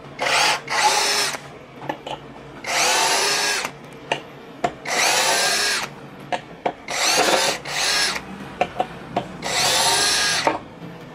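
Mollar CD12300 12 V brushless cordless drill run in about six short bursts, each under a second or so, its motor whine rising and falling as the variable-speed trigger is squeezed and eased. Small clicks sound between the bursts.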